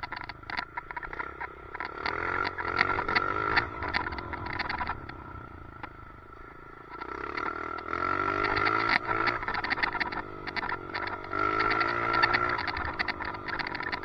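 Motorcycle engine revving up and down in repeated surges, with rapid rattling and a steady high whine, heard through a helmet chin-mounted camera; the rider puts the weird noise down to a chin mount that needs fixing. The engine eases off briefly in the middle, then surges again.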